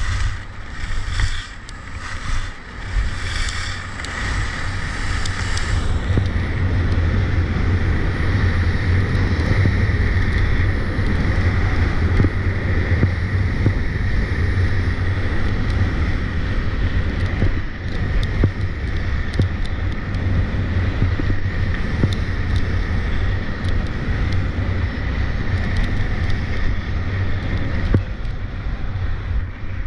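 Wind rushing over the microphone during a fast downhill run, with the hiss and scrape of edges on hard, icy snow. In the first few seconds the scraping comes in short surges about once a second as turns are linked, then settles into a steady rush.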